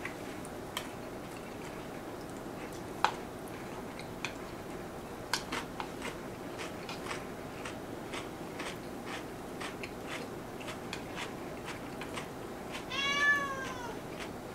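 Light clicks of chopsticks against bowls during a meal, then a domestic cat meows once near the end, a short call that rises slightly and falls.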